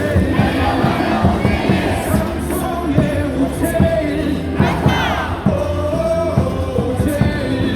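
Korean baseball cheering music over the stadium speakers with a steady drum beat, the crowd in the stands singing and chanting along.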